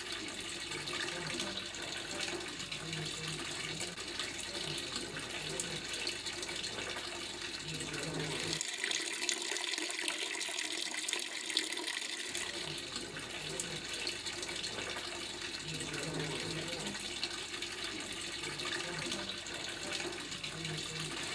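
Water running steadily from a stone fountain's spout, a thin stream splashing onto stone.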